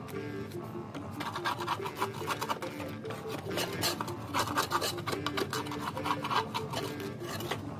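A crowbar scraping and digging caked grass deposits off the underside of a lawn mower deck, in rapid, repeated rasping strokes.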